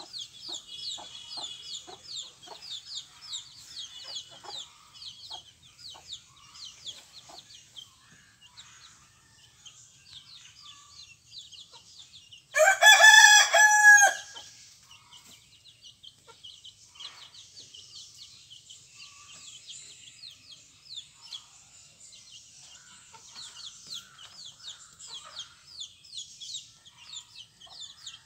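A brood of 20-day-old chicks peeping continuously in rapid high chirps while the mother hen gives short clucks. About halfway through, a rooster crows once, loudly, for about a second and a half.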